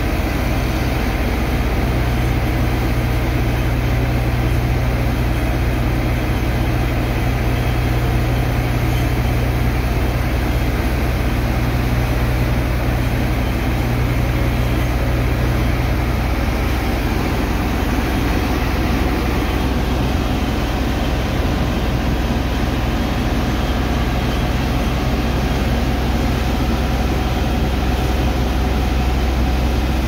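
Heavy engine driving the sand-unloading water pump, running steadily with a deep hum, under the rush of a strong water jet from the hose hitting wet sand. One of the low hum tones drops away about halfway through.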